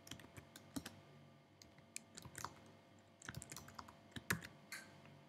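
Faint typing on a computer keyboard, with several short runs of keystrokes separated by brief pauses.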